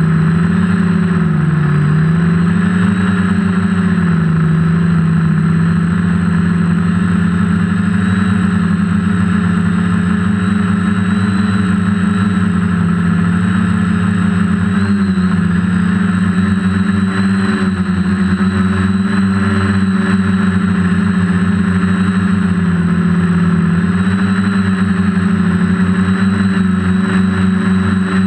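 DJI F450 quadcopter's motors and propellers buzzing loudly and steadily, picked up by the GoPro on board. The pitch wavers and dips briefly a few times.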